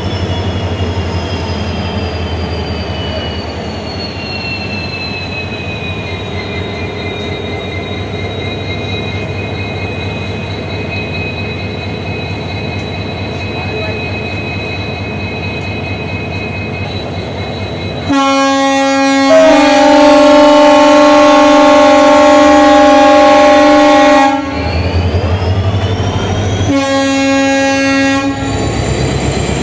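Indian Railways WDP4 diesel locomotive (EMD GT46PAC, two-stroke V16) running under power as it pulls its train away, with a steady drone and a high whine that dips in pitch about five seconds in. About eighteen seconds in its horn sounds one long blast of about six seconds, the loudest sound. After it the engine whine rises, and a second, shorter horn blast comes near the end.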